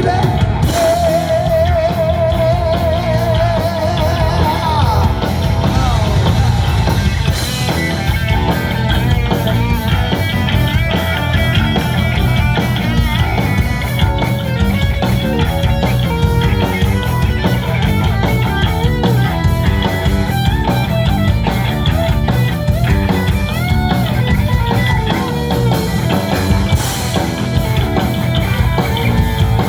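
Heavy metal band playing an instrumental passage with no singing, with drums and bass driving steadily under it. About a second in, a lead note is held with a wide vibrato for a few seconds.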